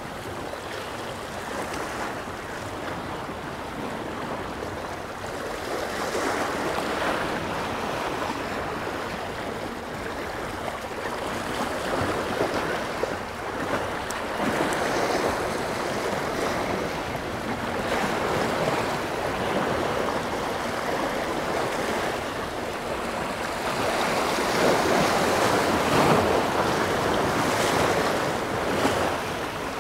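Waves washing against the rocks of a jetty, swelling and easing every few seconds, with wind on the microphone.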